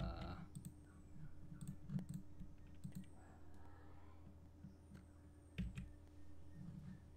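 Computer keyboard keystrokes and mouse clicks, scattered and irregular, over a steady low hum.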